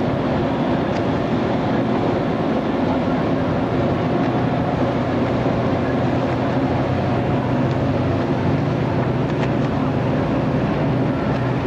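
Hovermarine sidewall hovercraft running, its engines making a steady, even drone over a constant rush of noise.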